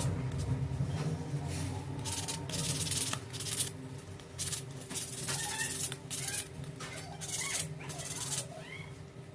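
Sandpaper rubbed by hand over a carved wooden spoon in short, irregular strokes, roughly one a second, with brief pauses between them.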